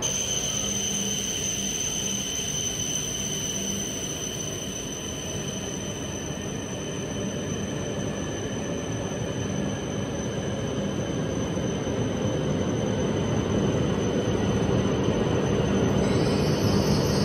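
E5 series Shinkansen bullet train pulling in along the platform: a steady high-pitched whine over a rumble that grows louder toward the end.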